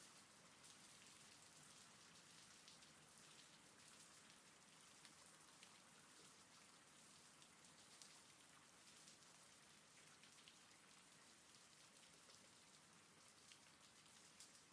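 Faint, steady rain with scattered small drop ticks.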